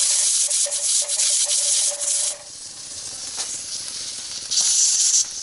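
Steam hissing hard out of a stovetop pressure cooker's valve, with a faint pulsing whistle, for about two seconds. Then a quieter hiss, and near the end a short, loud burst of steam as a hand works the valve on a cast-iron Afghan kazan pressure pot.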